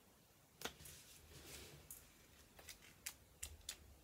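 Near silence with a few faint ticks and a soft rustle from the paper pages of a small homemade flip book being handled and flicked.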